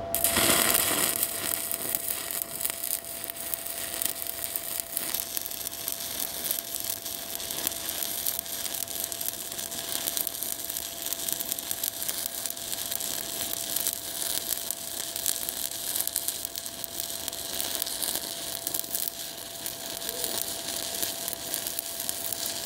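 Stick-welding arc from a 1/8-inch 7018 electrode run at about 120 amps: a steady frying crackle that comes in with a brighter burst as the arc is struck at the start. A faint steady tone sits under it.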